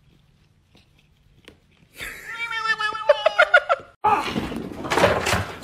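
A cat gives a long, wavering yowl about two seconds in, breaking into short pulsed cries before cutting off abruptly. A louder, noisier stretch with a voice in it follows.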